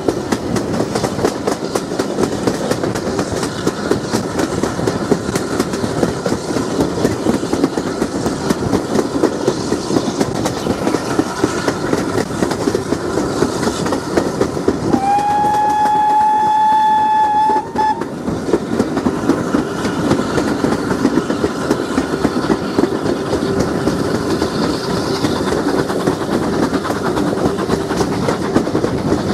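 Steam-hauled train running at speed, heard from a carriage window: a steady rumble with rapid clatter of wheels on the track. About halfway through, the GWR 4200 class 2-8-0 tank engine's whistle sounds once as one steady note for about three seconds.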